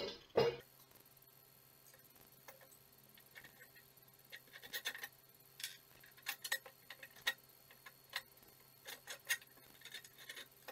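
A knock of metal parts on the plywood board in the first half-second, then scattered light metallic clicks and ticks, some in quick little runs, as a bolt is fitted and turned with a small hand tool through the plywood into the steel wheel bracket.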